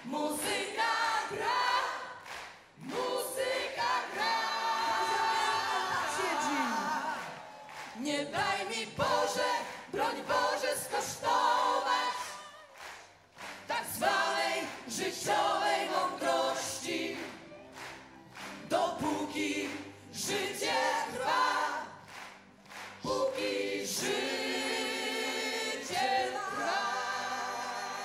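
A group of male and female voices singing a Polish song together in chorus, in long sung phrases with short pauses between them.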